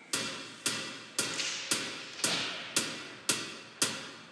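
Opening of a backing music track: a single sharp percussive beat repeated steadily, about two a second, each hit fading away.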